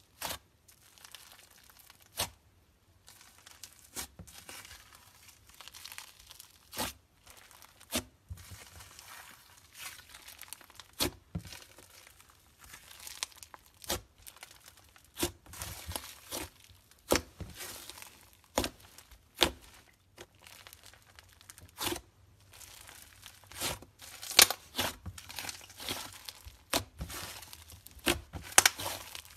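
Thick slime squished, kneaded and stretched by hand: a continual sticky crackle broken by many irregular sharp pops and clicks, coming thicker in the second half.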